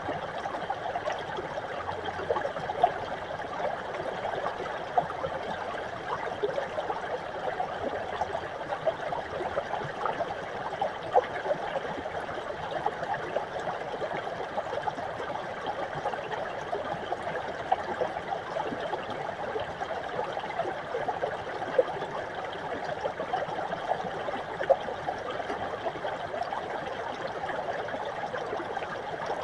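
Small mountain brook trickling and gurgling over rocks, a steady flow of water with frequent small splashes.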